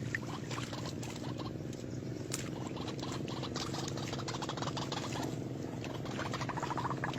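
White-breasted waterhen giving runs of rapid, stuttering purr-like calls, with scattered clicks and a steady low hum underneath.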